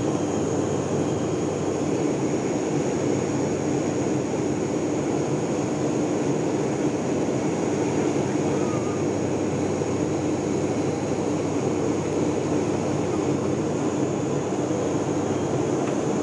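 Steady cabin noise of an airliner in flight: engine drone and rushing air, with a constant low hum and a faint high whine.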